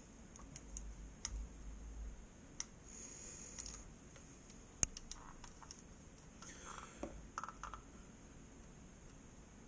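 Faint, scattered plastic clicks and taps from a Logitech M570 trackball mouse's casing being handled and pressed as its halves are pushed back together, with one sharper click about five seconds in.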